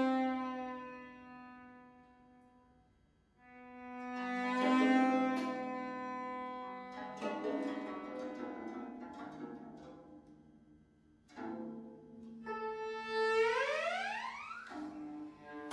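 Cello and prepared 21-string zheng playing together: long bowed cello notes that swell and fade, a few sharper struck or plucked notes, and a rising slide in pitch near the end.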